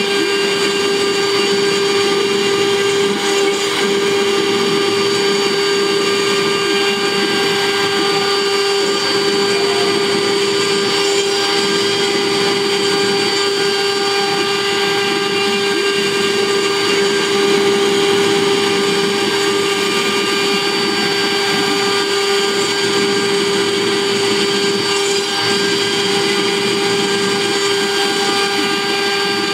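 CNC wood router spindle running at a steady high speed, one constant whine, while a tapered carving bit mills a relief into a wooden panel, with the hiss of the cut.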